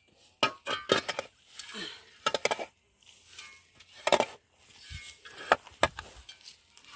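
Steel spade digging into turf and soil: irregular chops and scrapes of the blade, some with sharp clinks.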